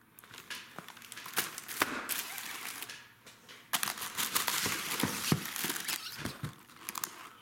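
Plastic shrink-wrap on fireworks packs crinkling as the packs are handled and set down, with a few light knocks.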